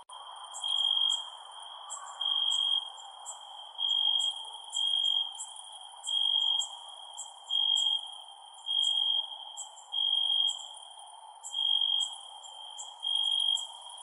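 Crickets chirping: one clear, high chirp of about half a second repeats a little more than once a second. Fainter, higher insect ticks come irregularly above it, over a steady low hiss.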